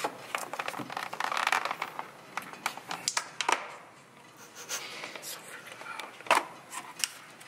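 Clear plastic dome lids being pried off takeout poke bowls: scattered clicks and plastic crinkling, with a sharp snap about six seconds in.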